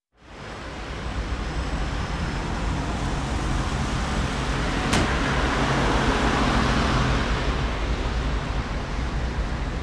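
Street ambience fading in from silence: a steady low traffic rumble with an engine hum, swelling a little midway, and one sharp click about five seconds in.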